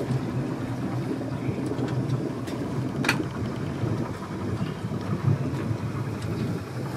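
Bayliner 2855 cruiser's engine running at low idle speed as the boat moves slowly away from the dock, a steady low sound; one sharp click about three seconds in.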